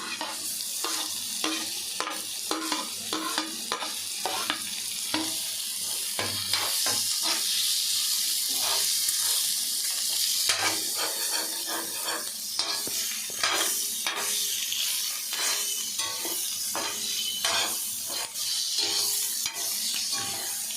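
Sliced boiled eggs sizzling in oil with onions and masala in a kadai. A spatula stirs through them, scraping and knocking against the pan many times, and the sizzle grows louder about six seconds in.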